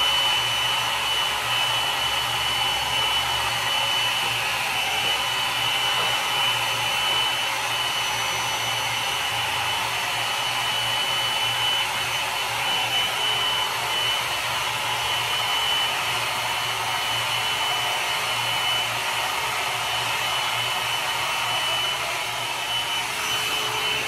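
Philco Soft Beauty PEC09RG 1200 W hot-air dryer brush running steadily while drying hair: a steady rush of blown air with a constant high motor whine.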